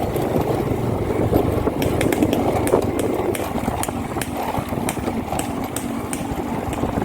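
Motorcycle running while being ridden: a steady rumble with irregular sharp clicks and rattles.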